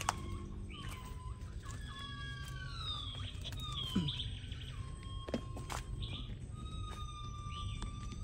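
Birds calling in the mangroves: several long, drawn-out whistles, some gliding down in pitch and overlapping, over a steady low background rumble, with a few sharp clicks.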